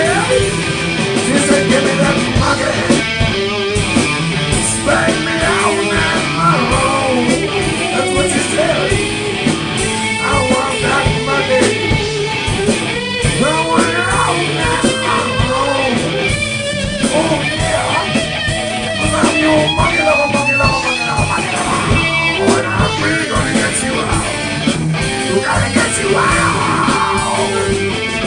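Live rock band playing: electric guitars and drum kit, with a lead singer singing into the microphone.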